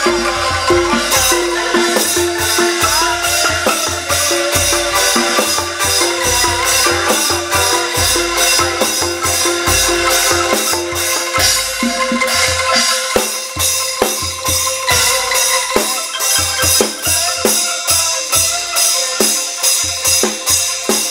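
Street angklung band playing: tuned bamboo angklung over a homemade drum set of a plastic-barrel bass drum, small drums and cymbals, keeping a steady beat. About halfway a held tone drops out and the drumming carries on in an even rhythm.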